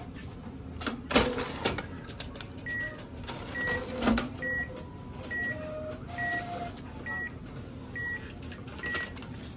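ATM cash dispenser clattering and knocking as it delivers banknotes, then beeping eight times, short high beeps a little under a second apart, while the cash waits in the slot to be taken.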